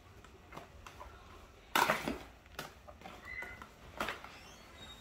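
Crinkling and rustling of a disposable aluminium foil pan and its noodles as they are lifted and tossed by hand, in scattered short crackles, with the loudest crinkle about two seconds in and another near four seconds.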